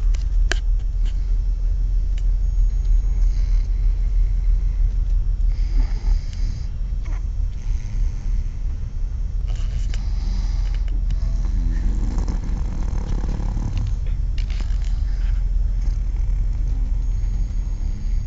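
Snoring: slow, rough breaths every few seconds, the loudest near the middle, over a steady low rumble.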